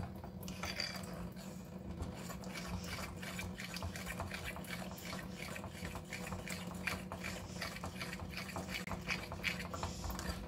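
A metal fork beating thick egg-and-flour batter in a ceramic bowl: a quick, uneven run of wet slaps and small clicks and scrapes of the fork against the bowl, over a steady low hum.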